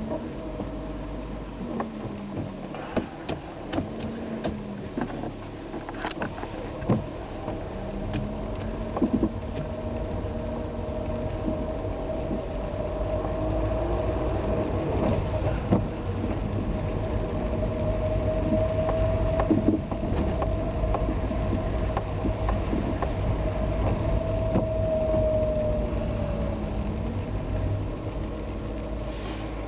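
A vehicle driving on a wet road in the rain: engine and road noise with a steady whine, the engine's pitch dipping and rising a few times, and scattered sharp clicks.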